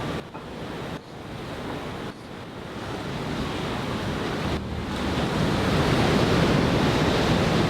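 Sea surf washing onto the beach, with wind buffeting the microphone. The sound drops out briefly a few times and swells louder in the second half.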